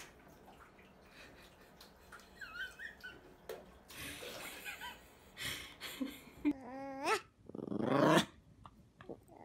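Water poured from a bottle splashing into a bathtub, then a small long-haired dog vocalizing: a rising whine and a louder, rough call near the end.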